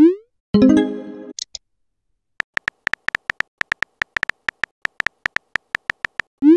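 Texting-app sound effects: a short rising whoosh as a message is sent, a brief chiming tone, then a quick run of keyboard tap clicks, about six a second, as a message is typed letter by letter, ending in another rising whoosh of a message being sent.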